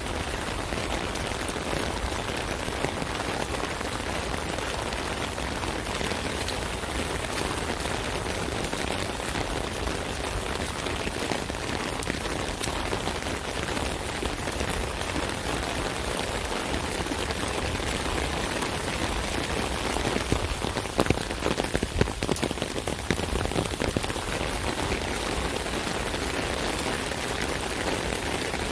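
Rain falling steadily on an umbrella, an even rush of drops striking the canopy, with a cluster of louder, sharper drop hits about two-thirds of the way through.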